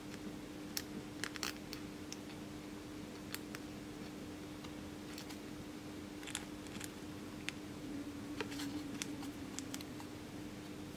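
Small, irregular clicks and scratches of resistor leads being pushed through and bent on a printed circuit board, over a steady faint hum.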